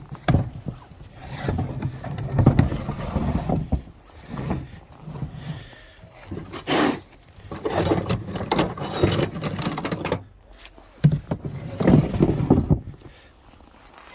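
Footsteps crunching through snow at a walking pace, about one step a second, with a few sharper crunches.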